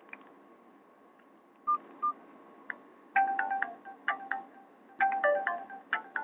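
A Nokia E50 ringtone playing through a Nokia 216's small phone speaker. Two short beeps come first, then from about three seconds in a bright chiming melody that repeats its short phrase.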